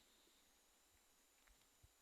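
Near silence: faint room tone, with two soft low taps near the end.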